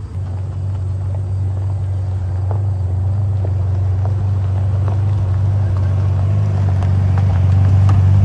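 Performance car engine and exhaust holding a steady low drone at one pitch, growing gradually louder.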